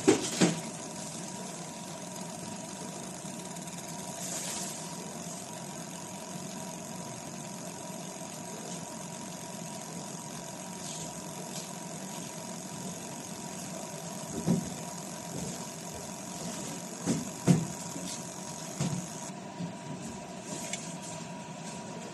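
Handheld laser marking machine running while it engraves a metal plate: a steady hum with a thin steady whine. A few knocks come at the start and again in the last third.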